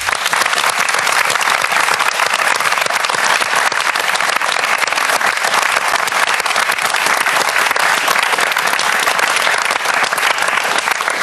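A studio audience of guests applauding, a dense steady patter of many hands clapping.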